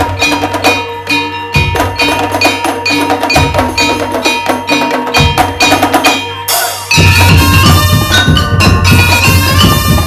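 Madurese daul (tong-tong) ensemble playing: mallet-struck keyed instruments ringing in a quick, even rhythm over hand drums and barrel drums. About seven seconds in, the full ensemble comes in much louder, with heavy low drumming.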